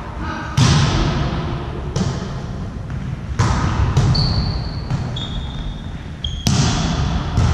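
Volleyball rally in a large sports hall: about six sharp slaps of hands and forearms on the ball, each echoing off the walls, with a few short high squeaks between them.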